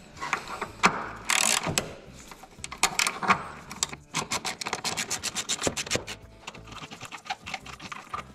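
Hand socket ratchet loosening a 14 mm mounting bolt: metal knocks and scrapes as the socket goes onto the bolt, then a fast, even run of ratchet clicks as the handle is swung back and forth.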